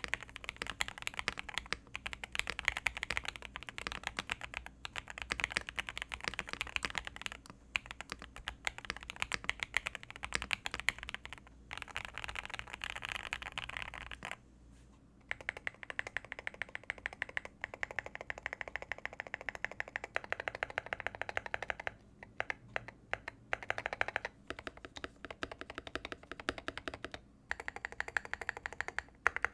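Custom mechanical keyboard being typed on rapidly: a dense run of keystroke clacks. There is a pause of about a second halfway through and a couple of brief gaps later.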